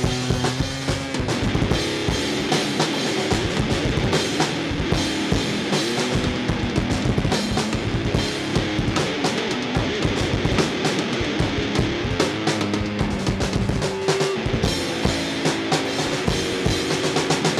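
Rock band playing an instrumental stretch of a song, the drum kit keeping a steady beat with bass drum and snare under bass and guitar.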